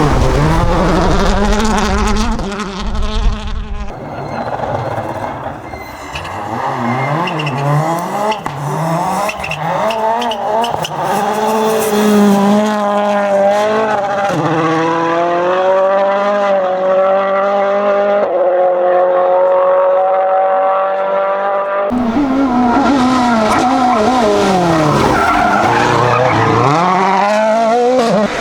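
Toyota Yaris WRC rally car's turbocharged 1.6-litre four-cylinder engine at full attack, its pitch repeatedly climbing and dropping through gear changes. The sound changes abruptly several times between passes.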